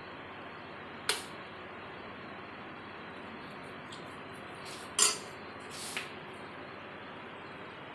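Metal ladle clinking against a steel cooking pan three times while serving curry: a sharp clink about a second in, the loudest about five seconds in, and a smaller one a second after that, over a steady background hiss.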